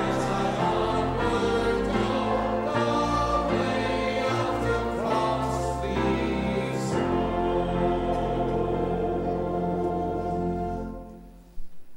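Church choir singing with instrumental accompaniment, closing on a held final chord that dies away about eleven seconds in. A couple of brief knocks follow.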